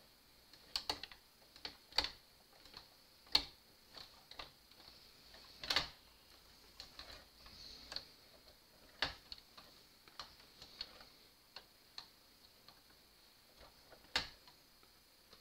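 Irregular sharp clicks and light knocks, roughly one a second and unevenly spaced, from a garter carriage being handled and moved into place on a Brother 930 knitting machine's needle bed. A faint steady high whine runs beneath.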